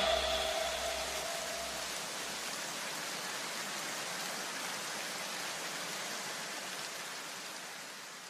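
A steady hiss of noise from the electronic background track, with no beat or melody, fading out near the end.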